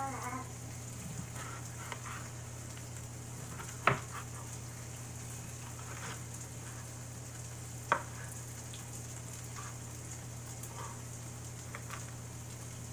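Kitchen knife chopping grilled chicken on a plastic cutting board: two sharp knocks about four seconds apart and a few fainter taps, over a steady sizzling hiss from chicken still frying in the pan.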